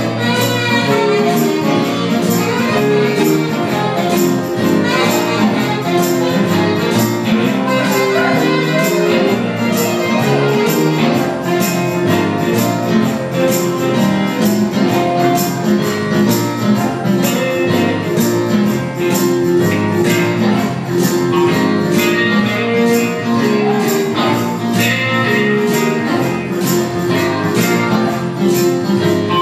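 Small live dance band playing, with electric guitar and saxophone over a steady, crisp beat.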